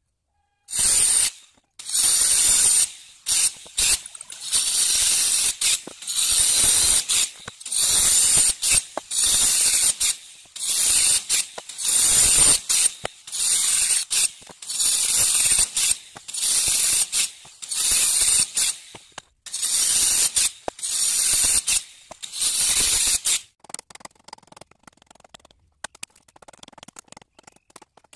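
Handheld circular saw cutting shallow cross cuts into stacked teak boards: about fifteen short cuts of a second or so each, the saw running up and tailing off between them. In the last few seconds, faint scattered tapping and chipping as a chisel knocks out the waste between the cuts.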